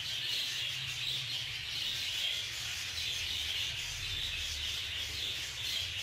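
A flock of budgerigars chattering steadily in the background, with low rubbing and handling noise close to the microphone.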